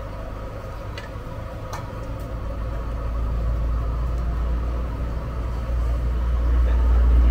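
Low, steady engine rumble of a vehicle running nearby, growing louder over the last few seconds, with a few faint clicks.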